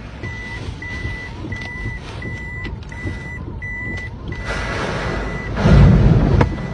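A car's in-cabin warning beeper sounds a high tone about one and a half times a second, then holds it as one continuous tone about four seconds in. Near the end a storm wave crashes over the car in a loud, heavy rush of water, the loudest sound here.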